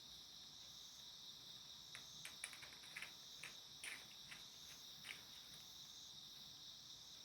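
Faint, steady high-pitched trill of crickets, with a few light clicks and taps from about two seconds in.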